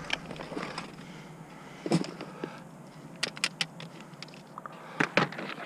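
Loose plastic Lego pieces clattering as they are rummaged through: a scatter of light, separate clicks, the loudest about two seconds in and near the end.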